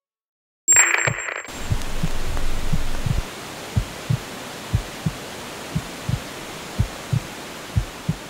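Heartbeat sound effect: paired low thumps, about one pair a second, over a steady hiss. It opens with a short, harsh burst of noise about a second in.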